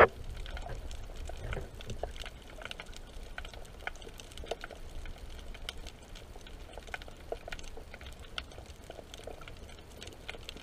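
Water sounds: a low steady rumble with many scattered faint clicks and taps, with one sharp click at the very start.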